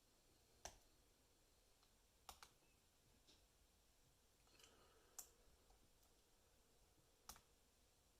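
Near silence broken by about seven faint, irregular clicks of a steel lock pick working the pins of a Lockwood 334B45 brass lock.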